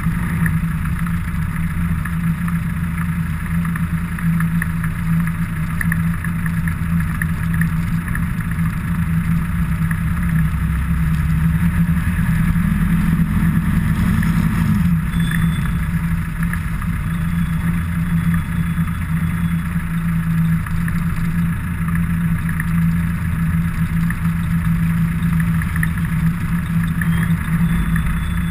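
A motor vehicle's engine running steadily at low revs, rising briefly in pitch about halfway through and then settling back, over road and wind noise.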